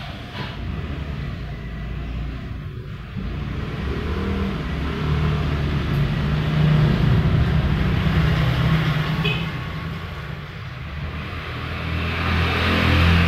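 Vehicle engine noise, a low hum that swells about halfway through and again near the end, as from traffic going past.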